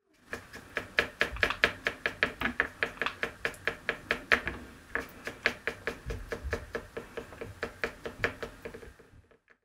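Paintbrush knocking and scraping in a plastic palette well while mixing paint, a fast run of clicking taps at about four or five a second that fades out near the end.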